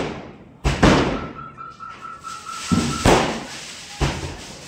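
Aerial fireworks bursting overhead: four sharp bangs at uneven intervals, each fading away after the blast.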